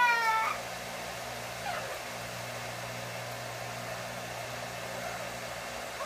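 Yellow-naped amazon parrot giving a loud, drawn-out, cat-like wail that rises and then sags, ending about half a second in. After it, a blow dryer runs steadily in the background.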